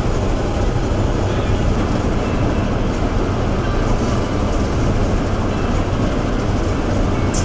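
Heavy agricultural machinery running steadily: a loud, even rumble with rattling clatter that does not let up.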